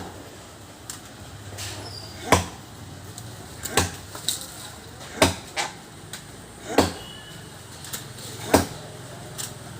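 Axe blows chopping into a tree trunk, a sharp strike about every one and a half seconds, five in all, some followed by a lighter knock.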